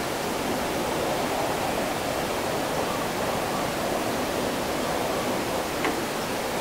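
Steady, even rushing noise of a city's ambience after rain, with one faint click near the end.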